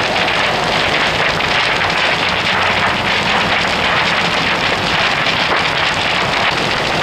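Large structure fire burning through a metal-framed building: a steady, dense crackling hiss.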